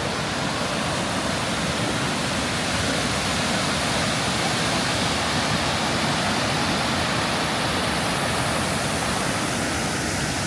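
Steady rushing of a waterfall, an even roar of falling water that holds at one level throughout.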